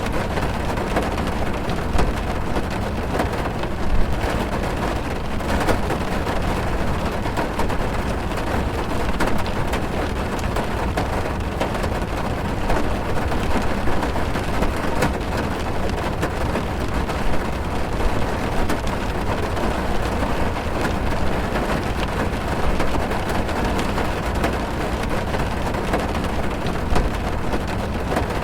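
Rain falling on a car's roof and windows, heard from inside the car: a dense, steady hiss with scattered sharp drop hits.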